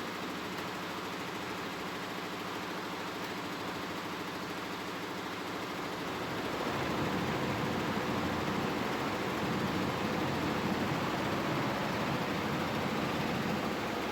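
Computerized embroidery machine stitching, running with a fast, even rhythm; it grows louder about six seconds in.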